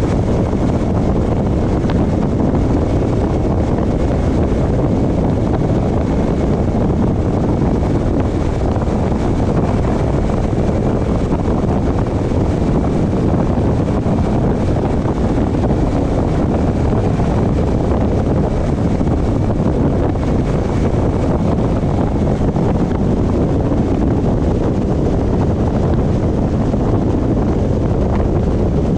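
Steady road noise of a car driving, with wind rushing over the microphone.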